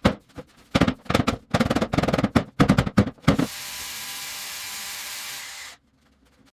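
A quick run of irregular sharp knocks, then a steady hiss for about two and a half seconds that cuts off suddenly.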